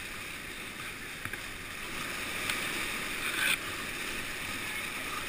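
Churning whitewater rushing steadily in the recirculating current below a man-made weir, with a brief louder splash about three and a half seconds in.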